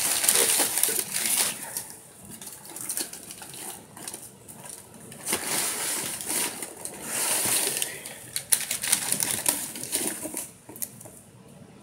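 Packing paper rustling and crinkling in a few bursts, with scattered sharp clicks and knocks near the end, as the last book is dug out of a cardboard shipping box.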